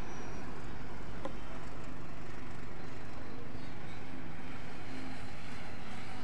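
Steady din of road traffic in a city, with a single click about a second in.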